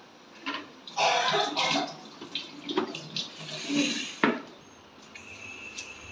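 Shredded cabbage being scraped off a food processor's chopping blade and out of its plastic bowl: irregular rustling scrapes and plastic knocks, with a sharp knock about four seconds in.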